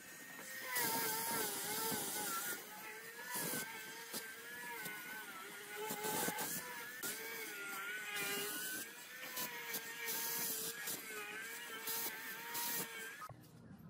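Hand-held electric angle grinder with a sanding disc, running and sanding a wooden frame. Its motor whine wavers in pitch as the disc is pressed on and lifted off the wood, with the hiss of abrasive on wood coming and going. It stops shortly before the end.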